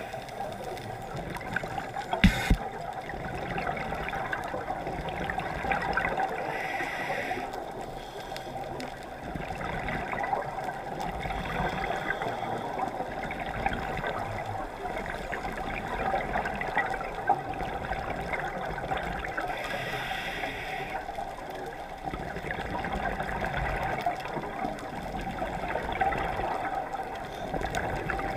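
Underwater sound through a GoPro housing: a steady muffled water rush, with scuba exhalation bubbles hissing and gurgling past at intervals, about six seconds in and again about twenty seconds in. One sharp knock a couple of seconds in.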